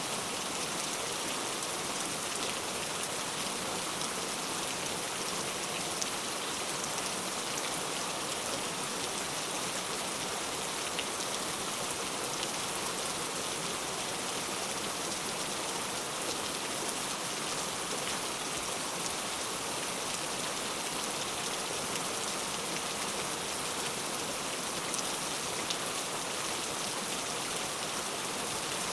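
Steady rain falling, an even hiss of raindrops with a few sharper individual drop ticks.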